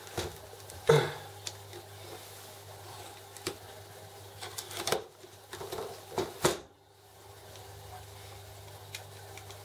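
Cardboard box being handled and set down on a worktop: a few scattered knocks and scuffs, the loudest about a second in, over a steady low hum.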